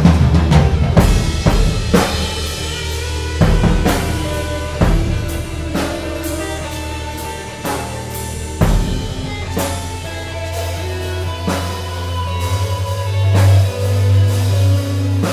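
Free improvised ensemble music: irregular, unmetred drum kit strikes over sustained low bass notes and held pitched instrumental tones, swelling louder near the end.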